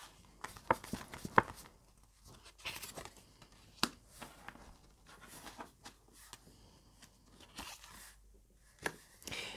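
Small cardstock cards being handled: faint rustling of card sliding against card, with scattered sharp clicks and taps as cards are picked up, turned over and laid down on the craft mat.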